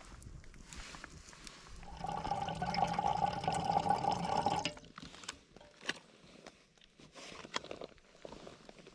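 Liquid being poured into a container for about two and a half seconds, followed by a few light clicks of handling.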